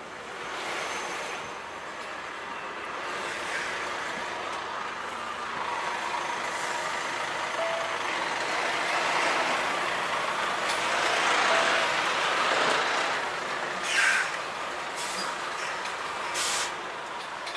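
Heavy truck (DAF XF 106 tractor unit) running in the cab as it moves off and turns, a steady wash of engine and road noise that swells midway. Sharp short air hisses from the brake system come about 14 seconds in and again near the end.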